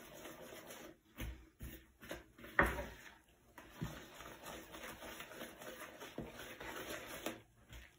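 Wooden spoon stirring flour into wet banana-bread batter in a mixing bowl: soft scraping with a few knocks of the spoon against the bowl, the loudest about two and a half seconds in.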